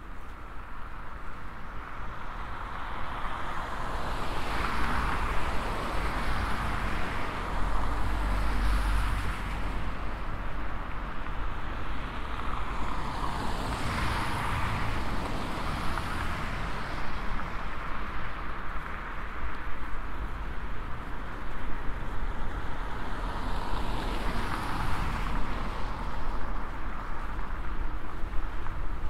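Road traffic: cars passing one after another. Their tyre and engine noise swells and fades three times, about ten seconds apart, over a steady low rumble.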